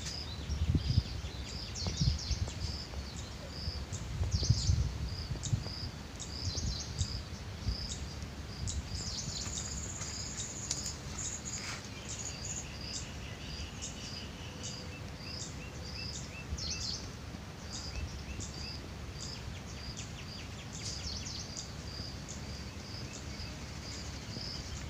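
Rural outdoor ambience: a short, high chirp repeating steadily about twice a second, with a few other bird calls around the middle. A low rumble sits under it in the first few seconds.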